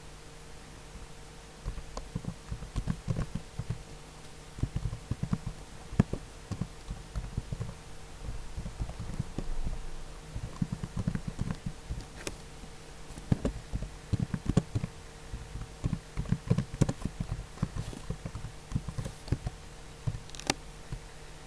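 Computer keyboard keys tapped in irregular runs of typing, over a steady low hum.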